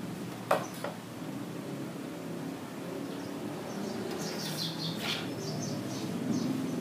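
Two light knocks of a wooden block set down on a wooden strip on a table, about half a second in. Later there is a short run of high chirps and a sharp click near the five-second mark as a handsaw is brought onto the wood.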